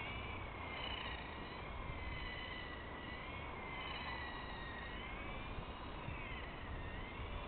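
Remote-controlled car's electric motor whining, its pitch rising and falling as the throttle changes.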